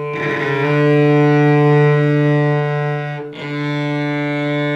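Three cellos, two acoustic and one electric, bowing a long sustained D together with firm bow pressure kept at one contact point. About three seconds in the bows change direction, with a brief dip in level, and the note carries on.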